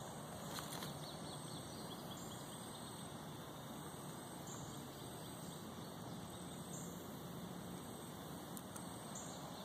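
Quiet summer woodland ambience: insects making a steady high drone, with short high calls repeating every two seconds or so. A brief crackle comes under a second in.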